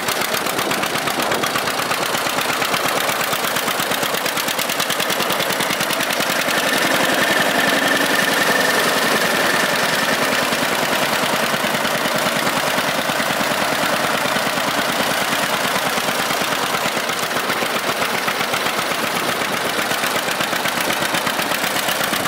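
John Deere 60's two-cylinder engine running at idle with its rapid, even popping exhaust beat. It gets slightly louder for a few seconds near the middle.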